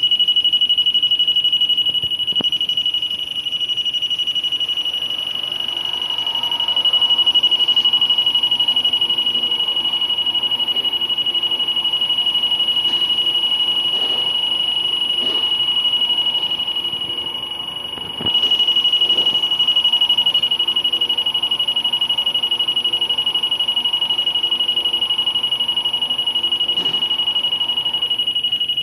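Electronic alarm buzzer sounding one continuous high-pitched tone, with a few faint knocks.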